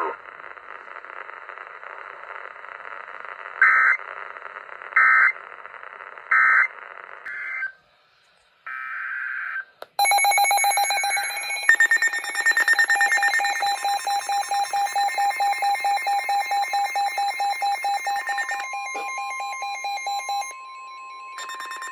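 Emergency alert broadcast signals: hissing radio static cut by three short, loud data bursts that end the marine warning message. About ten seconds in, a new alert starts with a rapidly pulsing electronic alarm tone over steady tones, and this carries on to the end.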